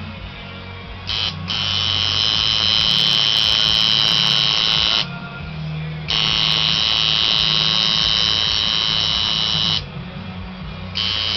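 Tattoo machine buzzing as the needle works along stencil lines on skin, running in stretches of a few seconds: it starts about a second and a half in, stops about five seconds in, runs again from about six seconds to nearly ten, and starts once more near the end.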